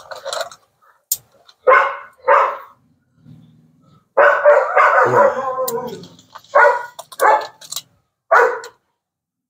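A dog barking repeatedly in short barks, with one longer drawn-out cry a little over four seconds in.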